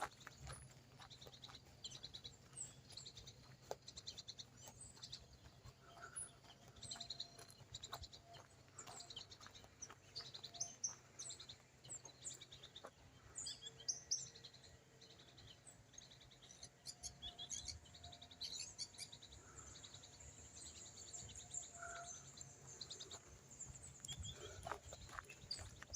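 Wild birds chirping and calling faintly, many short high chirps and trills throughout.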